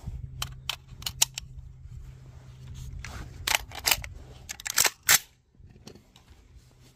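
Sharp metallic clicks and clacks of an AR-style rifle being handled after its upper was swapped for a 7.62x39 one: a quick run of light clicks, then a louder cluster of clacks about three and a half to five seconds in.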